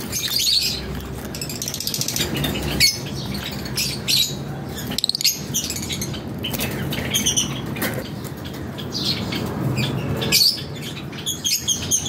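Lovebirds chirping in many short, high calls, with some wing fluttering in the cage.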